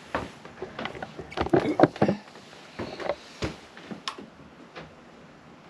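Scattered clicks and knocks of things being handled, bunched together about one and a half to two seconds in, then single clicks later on.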